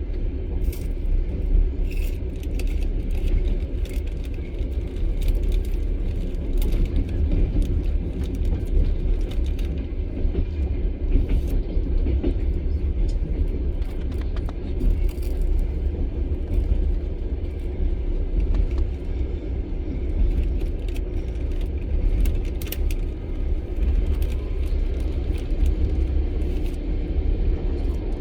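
Passenger train running at speed, heard from inside the carriage: a steady low rumble of wheels on the rails, with scattered clicks and rattles.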